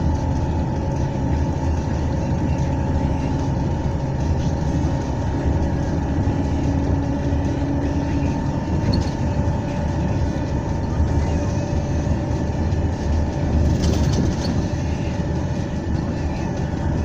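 A large engine running steadily, with a deep rumble and a thin steady whine above it.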